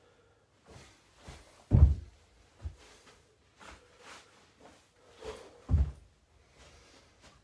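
A man's feet thudding on a carpeted floor as he lands from jumps: two heavy landings about four seconds apart, with lighter footfalls between them.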